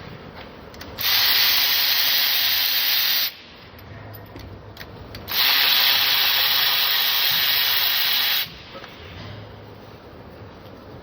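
Cordless power tool run in two steady bursts, the first about two seconds long and the second about three.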